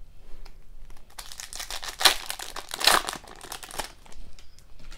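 Foil hockey card pack being torn open, the metallic wrapper crinkling and tearing for a few seconds, strongest in the middle.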